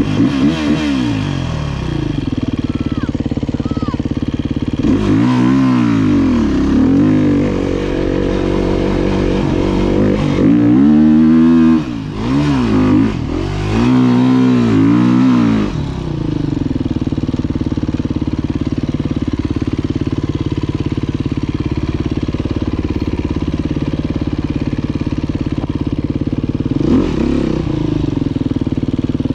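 Enduro dirt bike engine heard from the bike itself. It runs steadily, then for about ten seconds is revved up and down again and again as the bike climbs a sandy slope, then settles back to a steady run, with one short rev near the end.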